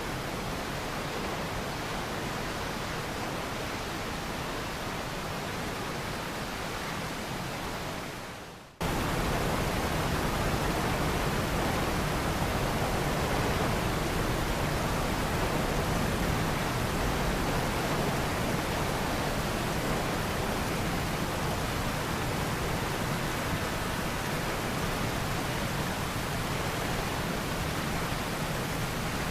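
Steady rushing noise with no tone or rhythm in it, a hiss like static. About eight seconds in it fades quickly, then cuts straight back in a little louder.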